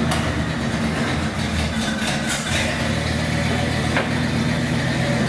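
1977 Buick Regal's engine idling steadily through its newly installed dual exhaust.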